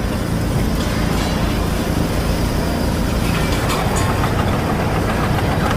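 Heavy diesel machinery engine running steadily, a deep low sound with no change in pace.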